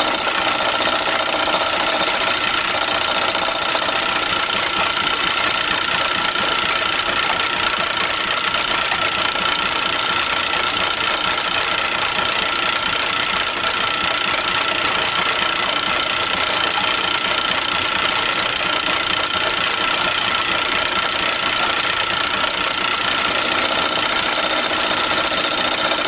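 Metal lathe running steadily with a high whine and gear noise while the cutter is fed slowly into square key stock in the four-jaw chuck, taking an interrupted cut off its corners to turn it round.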